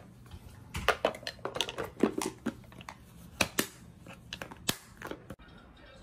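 Food-storage containers with latching lids being handled and packed: an irregular run of sharp clicks and knocks as the containers and their lids bump together.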